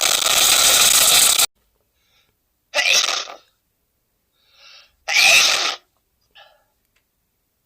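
A man sneezing over and over: three loud sneezes about two and a half seconds apart, the first drawn out, with short faint gasping breaths between them.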